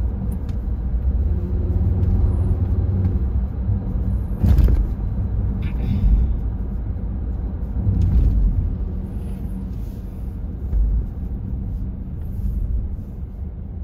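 Low road and engine rumble heard inside a moving car's cabin, with a brief thump about four and a half seconds in.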